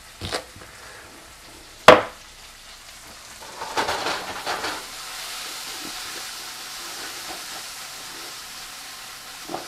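A knife chopping onion on a plastic cutting board, a few sharp chops in the first two seconds, the one about two seconds in the loudest. From about three and a half seconds in, sliced bell peppers are stirred in a hot frying pan, with a short clatter, and then sizzle steadily.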